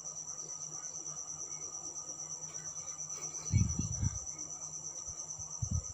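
A cricket chirping in a steady, fast, evenly pulsing high trill throughout, with a brief low sound about three and a half seconds in and again near the end.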